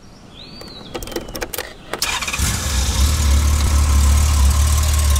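1988 Honda Gold Wing GL1500's flat-six engine being started: a few clicks, then the engine catches about two seconds in and settles into a steady idle.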